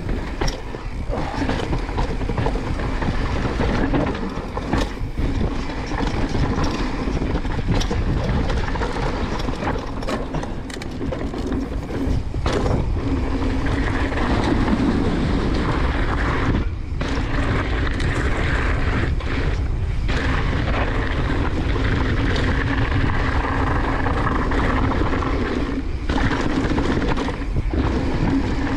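Mountain bike riding down a trail: a steady rumble of wind on the microphone mixed with the tyres rolling and the bike rattling over rough ground, with a few brief dips in the noise.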